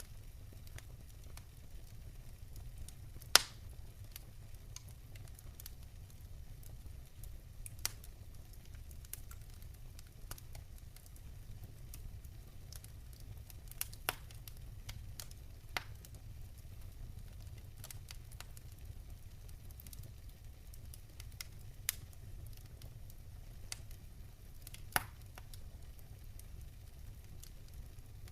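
Wood campfire crackling, with sparse sharp pops over a steady low rumble; the two loudest pops come about three seconds in and near the end.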